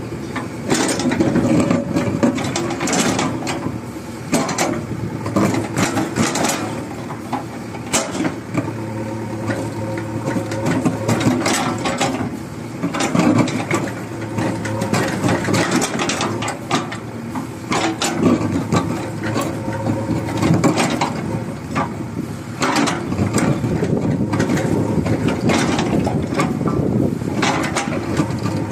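Excavator's diesel engine running steadily as its bucket digs and scrapes stony soil, with frequent irregular knocks and scrapes of stones and the steel bucket.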